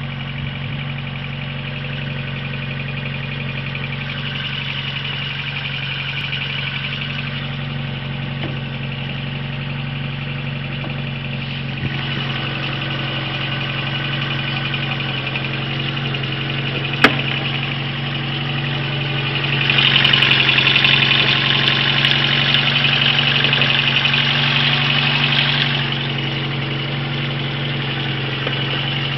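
Car engine idling steadily with an even low hum. There is a single sharp click about seventeen seconds in, and from about twenty to twenty-six seconds in a louder, higher-pitched whir is added on top.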